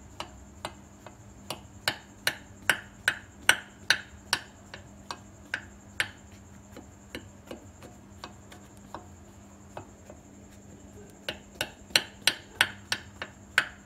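A metal fork jabbed again and again into a baked sponge cake in a glass baking dish, its tines clicking sharply on the glass, about two to three clicks a second. The clicks grow sparser and fainter for a few seconds in the middle, then pick up again near the end.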